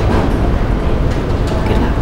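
Steady low rumble of a ferry's engines heard inside its passenger lounge.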